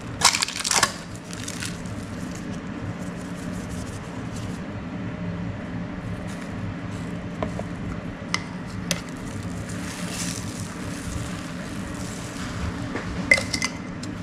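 Spice containers handled while seasoning fruit in a plastic bowl: a few sharp clicks and knocks of shakers, jars and lids, the loudest cluster about a second in and another near the end, over a steady low hum.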